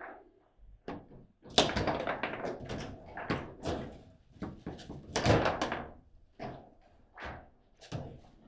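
Table football rally: the ball cracking off the rod figures and knocking against the table walls, with rods banging, a rapid irregular run of sharp knocks that is loudest about a second and a half in and again around five seconds in.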